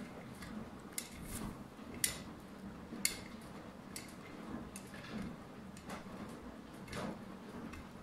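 Arçelik front-loading washing machine tumbling a wet, sudsy load in its wash phase: water and laundry sloshing in the turning drum. Sharp clicks land about once a second, loudest in the first three seconds.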